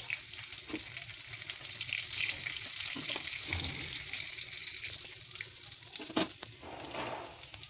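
Hot oil sizzling in a steel kadai as dried red chillies and coarse-crushed ginger and garlic fry in the tempering for sambar. The sizzle dies down over the last couple of seconds, with a few sharp clicks of a spatula against the pan.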